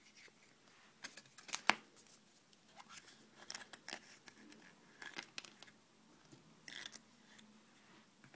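Yellow plastic toy capsule from a chocolate surprise egg handled and pried open by hand: a string of sharp plastic clicks and snaps, the loudest about a second and a half in, with a short rustle near the end.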